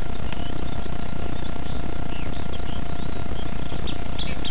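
Small birds chirping in short, scattered calls over a loud, steady rushing noise.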